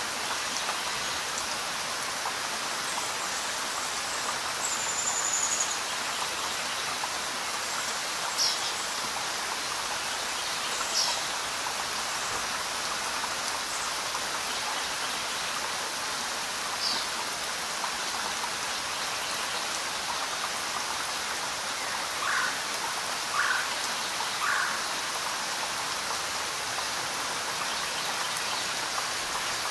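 Steady rain falling, an even hiss. A few short, high chirps stand out over it: one about five seconds in, others around eight, eleven and seventeen seconds, and three quick ones in a row about two-thirds of the way through.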